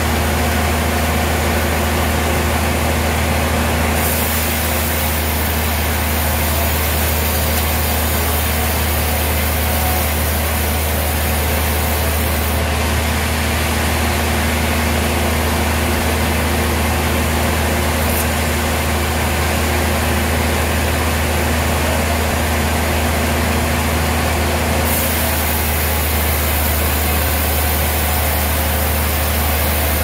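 A band sawmill running steadily with a constant low drone from its drive. A hiss above the drone gets louder and softer a few times.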